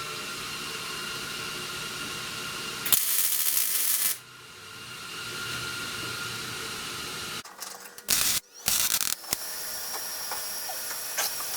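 Welder laying short bursts of weld on sheet metal: one lasting about a second, about three seconds in, and two shorter ones a little past the middle, over a steady hiss.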